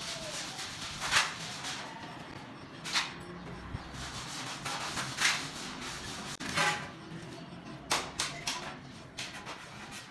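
Tile-setting work: a notched steel trowel scraping and combing adhesive on the floor, then a large 800 × 800 mm floor tile being lifted and handled, with several short sharp scrapes or knocks along the way.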